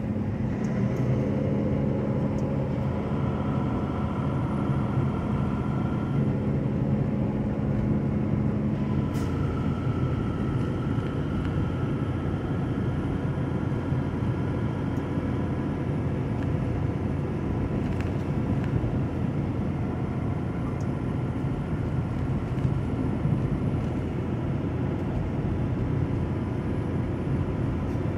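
Semi truck heard from inside the cab while driving: a steady engine hum over tyre and road noise. The engine's tone changes about nine seconds in, at a short click.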